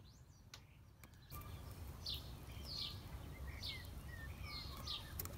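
Small birds chirping in the background: a run of short, quick, falling chirps, about two a second, starting about two seconds in over low ambient noise.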